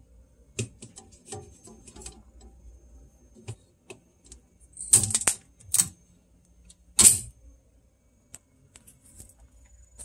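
Blue packing tape being peeled off the plastic shelf trim and foam pieces inside a new refrigerator: a run of small clicks and taps, with three sharp ripping sounds at about five, six and seven seconds in.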